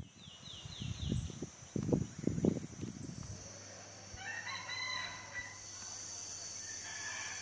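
A rooster crowing once for about a second and a half, starting about four seconds in, with a fainter call near the end. Under it runs a steady high-pitched whine. In the first three seconds there are loud low rumbles, a few short falling chirps and a brief high trill.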